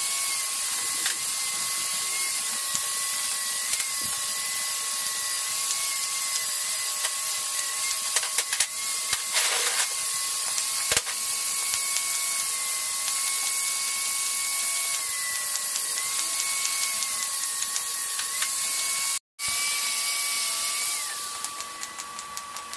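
TIG welder arc on stainless steel: a steady hiss with a constant electrical whine, and a second whine that steps up and down in pitch. It breaks off for a moment about 19 seconds in and near the end gives way to quieter, regular ticking.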